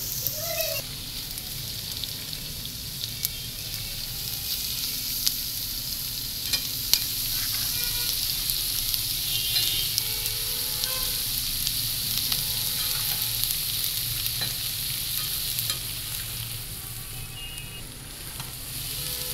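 Sliced onions and bitter gourd (karela) sizzling as they fry in hot oil, stirred with a metal spatula that scrapes and clicks against the pans now and then.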